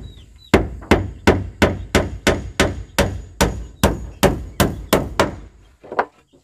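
Hammer driving a nail: a quick run of about a dozen steady blows, roughly three a second, then a pause and one last strike.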